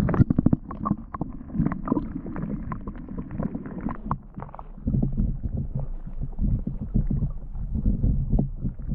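Underwater camera dropping into a water-filled ice-fishing hole with a splash and a quick run of knocks. It then picks up a muffled, low rumbling water sound with scattered knocks as it hangs below the ice.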